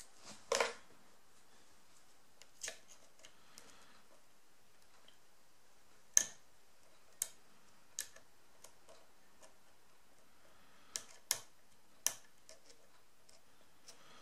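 Ace padlock being single-pin picked: scattered sharp metallic clicks, about eight in all, of the pick and tension tool working the pins. The pins are setting and slipping back while the picker works toward a false set, oversetting a pin and easing tension to let it drop back.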